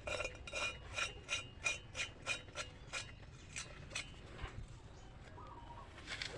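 Metal scraping and clinking in quick, even strokes, about three a second, with a faint ringing, stopping about four seconds in.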